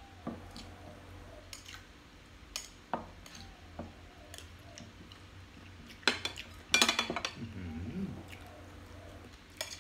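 Metal spoon clinking and scraping against a ceramic bowl as raw beef koi is stirred and scooped. There are scattered light clicks, then a cluster of louder clinks about six to seven seconds in.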